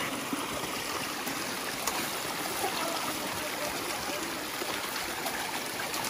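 Stream water flowing steadily, a continuous rushing trickle.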